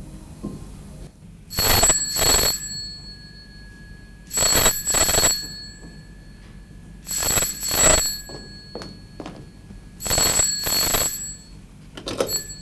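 Telephone bell ringing in the double 'ring-ring' pattern, four double rings about three seconds apart, then a few short clicks near the end as the receiver is lifted.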